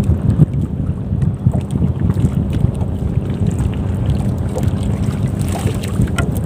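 Wind buffeting the microphone in a small boat at sea: a steady, loud low rumble.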